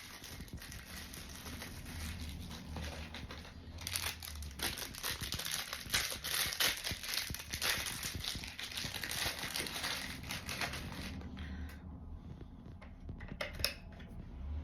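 Plastic packaging crinkling and rustling as it is handled, dense and continuous until about eleven seconds in. After that it is quieter, with a few light clicks and knocks near the end.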